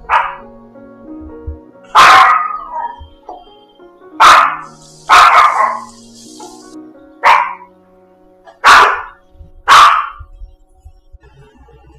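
A small spitz-type dog barking: seven loud, separate barks spaced roughly one to two seconds apart, over faint background music.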